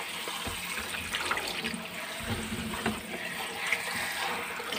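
Tap water running steadily into a plastic tray of chili leaves in a stainless steel sink, with light splashing and handling as the leaves are rubbed and rinsed by hand.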